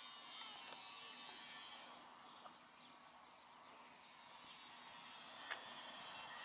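Faint outdoor ambience: a steady high hiss with a few short, high bird chirps in the middle stretch and a single sharp click about five and a half seconds in.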